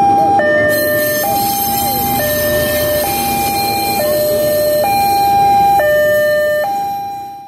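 Railway level-crossing warning alarm sounding a loud two-tone signal, alternating a higher and a lower note about once a second, over the steady rumble of a passing diesel locomotive.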